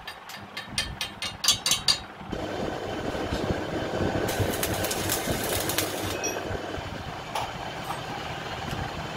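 Stick (arc) welding on a steel tie rod end. It opens with a quick run of sharp clicks for about two seconds, then the arc crackles and sizzles steadily.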